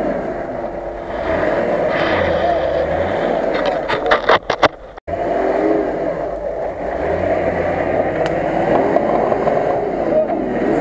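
Nissan Patrol's engine revving up and down under load as it crawls through deep ruts. The sound cuts out briefly about halfway.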